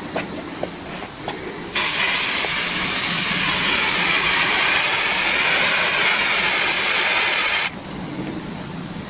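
A loud, steady hiss that starts abruptly about two seconds in and cuts off abruptly about six seconds later, over a faint steady low background.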